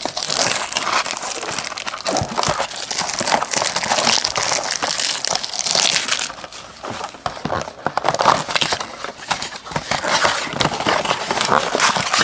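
Plastic and foil wrappers crinkling and tearing as a trading-card blaster box is opened and its packs unwrapped: a dense, loud crackle for about the first half, then scattered rustles and crinkles.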